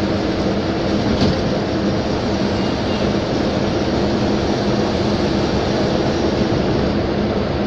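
Steady road, wind and engine noise from a moving vehicle, with a low steady hum and one short tick about a second in.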